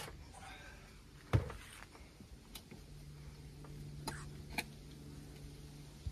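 A few sharp clicks and knocks of hands working at a rooftop tent's fittings and the car, the loudest a low thump about a second and a half in. A faint low steady hum comes in about three seconds in.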